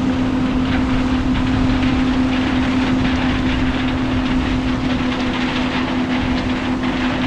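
Combine harvester running steadily: a constant droning hum under a busy rattle from the machine.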